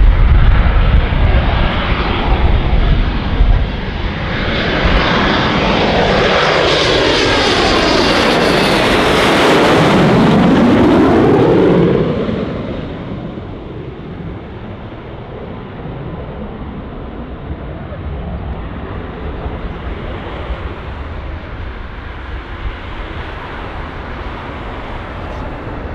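Panavia Tornado's twin RB199 turbofan engines as the jet comes in low to land. The jet noise builds to a peak with a sweeping whoosh as it passes, then drops off sharply about twelve seconds in, leaving a lower, steady rumble.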